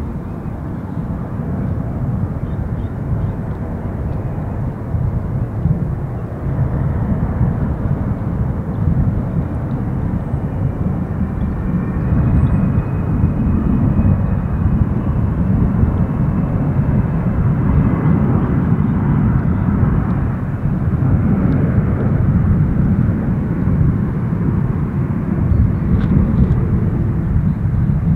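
Jet airliner landing, its engines a loud low rumble that swells over the first dozen seconds and then holds steady.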